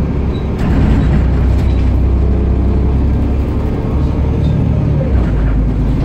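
Volvo B7TL double-decker bus heard from inside the lower saloon while under way: its six-cylinder diesel engine runs with a heavy low drone over road noise, growing louder about a second in.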